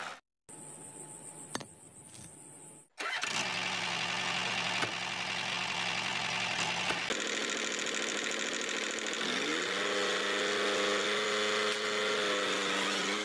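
Small engine running steadily after a quieter stretch with a high whine, its pitch rising around nine to ten seconds in and then holding.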